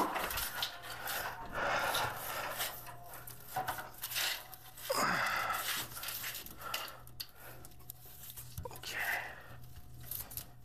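Bundles of blue data cable rubbing and scraping against each other and the plywood backboard as they are handled, in irregular rustling bursts with a few clicks, over a steady low hum.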